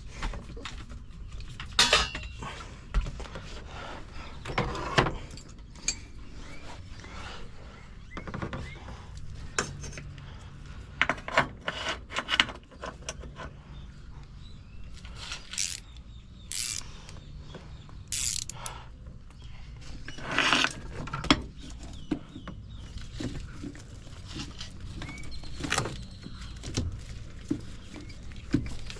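Hand-tool work on a pickup truck's parking brake and underbody: irregular metallic clicks, clanks and knocks, with a few louder knocks scattered through.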